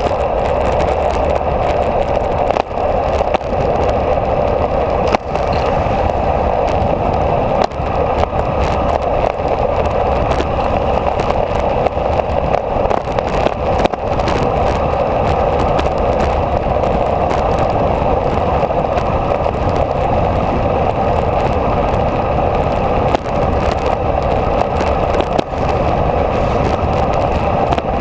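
Motorcycle riding downhill at road speed, heard as steady wind rush over an onboard camera's microphone with the engine running low underneath.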